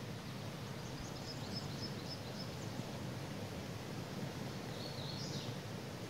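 Steady rush of a forest creek flowing over rocks. A songbird sings two short high phrases over it: a run of quick repeated notes about a second in, and a brief flourish near the end.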